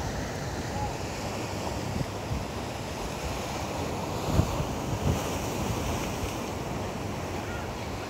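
Ocean surf washing and breaking over rocks below a sea cliff, with wind buffeting the microphone in low gusts, the strongest about four and a half seconds in.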